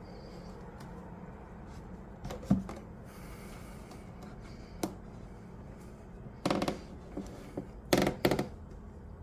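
Parts of a watch winder being handled during reassembly: a sharp knock, a light click, then two short bursts of clattering, plastic-on-plastic knocks and rattles.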